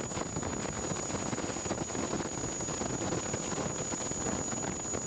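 Steady rushing noise with a thin, constant high whine over it.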